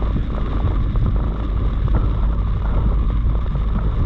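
Heavy rain pelting a moving car's roof and windshield, a dense patter of drops over a steady low rumble of road and wind noise inside the cabin.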